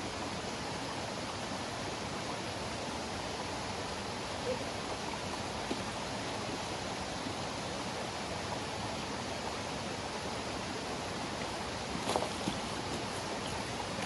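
Mountain stream running over rocks and a small cascade: a steady rush of water, with a couple of faint ticks.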